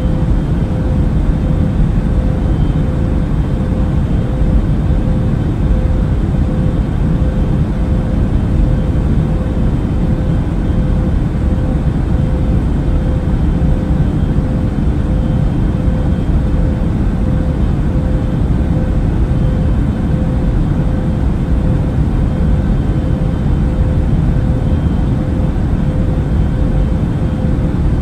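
Airliner cabin noise in flight: a steady, deep rumble of engines and airflow, with a faint steady hum above it.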